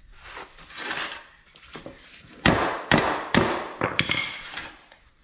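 Scraping, then four or five sharp metal knocks over about two seconds, the last with a short ring, as bent salt spreader parts are handled and knocked during the repair.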